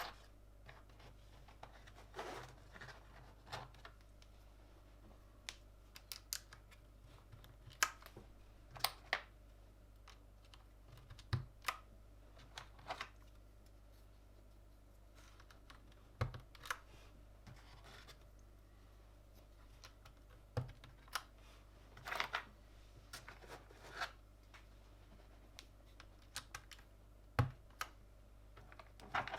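Irregular sharp clicks and snaps of Gamakay LK67 mechanical keyboard parts being pressed into place during assembly, with a few brief scrapes between them.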